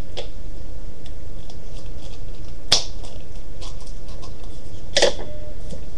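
Small clicks and taps of craft materials being handled on a table, with two sharper clicks about two seconds apart, over a steady low hum.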